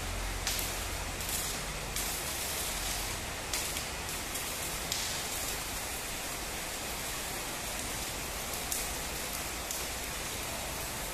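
Stick (shielded metal arc) welding arc crackling and sizzling steadily as an electrode burns against an upright steel plate.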